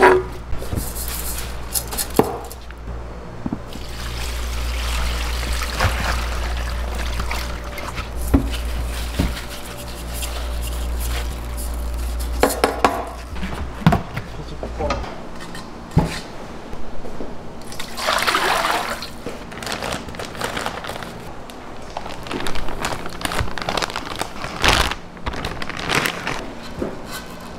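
Kitchen prep sounds: a knife cutting napa cabbage on a wooden board, a plastic basin being handled, and stretches of running or pouring water, all with scattered knocks. A steady low hum stops about halfway through.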